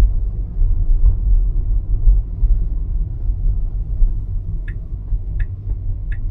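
Low road and tyre rumble inside a Tesla's cabin while it drives. About three-quarters of the way through, the turn signal starts ticking, roughly one click every three-quarters of a second.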